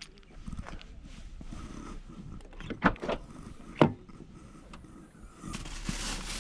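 Footsteps and handling noise with a few sharp clicks, then a steady hiss of noise that starts near the end.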